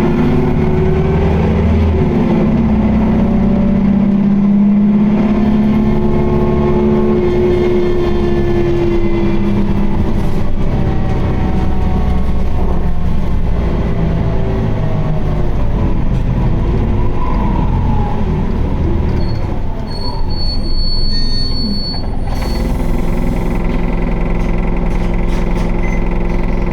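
Interior running sound of an Isuzu Erga (QDG-LV290N1) city bus, its four-cylinder turbo diesel and drivetrain whining in tones that fall as the bus slows. About twenty seconds in, a brief high squeal sounds for about two seconds. It then settles into a steady idle with a hiss, in a bus noted for an odd noise and heavy vibration.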